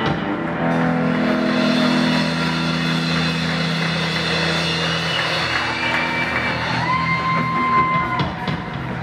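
A live electric blues band playing: electric guitars holding long sustained notes over a drum kit, with one high note held for a second or so near the end.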